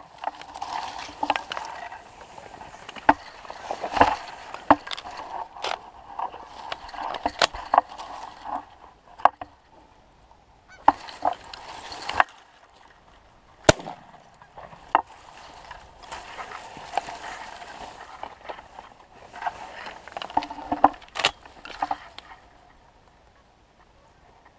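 Canada geese honking and clucking in bunches of short calls with sharp clicks, with a couple of brief lulls; the calling dies away about two seconds before the end.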